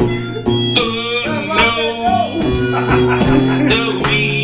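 Acoustic blues played live: a strummed acoustic guitar with a harmonica wailing over it, and a man singing.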